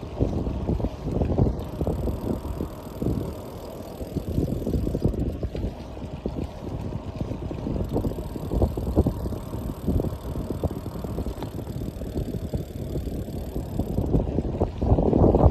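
Wind buffeting the microphone with road rumble during a bicycle ride, a rough low rumble that swells and eases and grows louder near the end.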